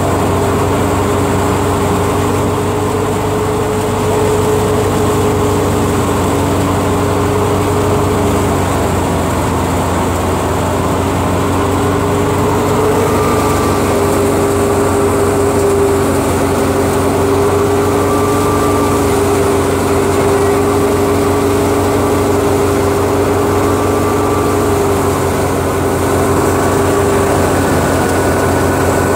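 Tractor-driven wheat thresher running steadily while threshing, a loud even mechanical drone with a hum that wavers slightly in pitch.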